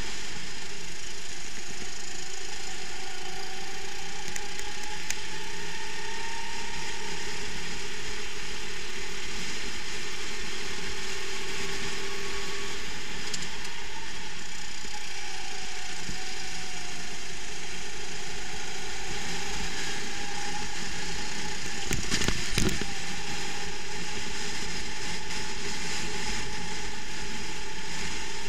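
Rental kart's engine heard on board the kart, running steadily with a pitch that rises and falls as it accelerates and lifts through the corners, over a mechanical rattle. A brief burst of clatter about three-quarters of the way through.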